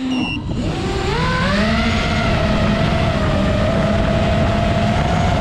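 FPV quadcopter's brushless motors and propellers whining, recorded on the onboard camera: the pitch climbs as the throttle comes back up over the first couple of seconds, then holds steady. Wind rumble on the microphone runs underneath.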